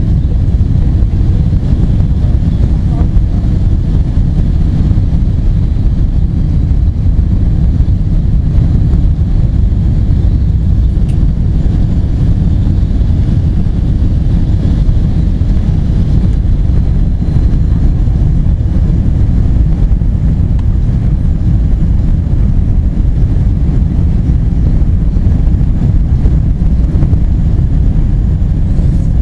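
Steady, loud low rumble inside a Boeing 777-200's passenger cabin: engine and airflow noise.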